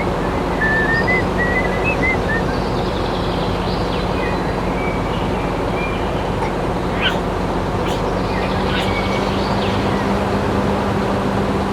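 A small motor hums steadily under a constant noisy rush. A warbling whistle-like tone runs through the first couple of seconds, and short chirps come and go over the hum after that.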